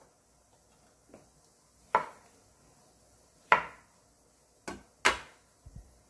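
Chef's knife cutting shiitake mushrooms into quarters on a wooden cutting board: about four sharp knocks of the blade hitting the board, spread over a few seconds, with a faint tap before them and a few small taps near the end.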